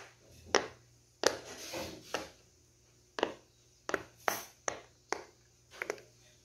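Rocket-shaped pop-it fidget toy having its bubbles pressed through: about ten short popping clicks at uneven intervals.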